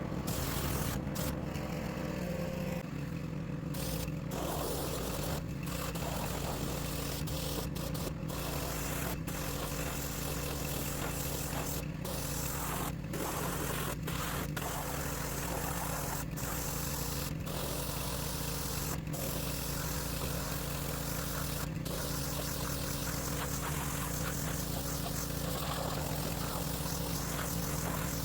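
Pressure washer running steadily: a constant motor hum under the hiss of the water spray.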